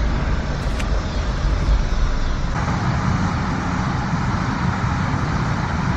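Steady low rumble of a car's engine and tyres heard from inside the cabin while pulling into a parking space, then, about two and a half seconds in, a sudden change to the steady hiss and hum of road traffic outdoors.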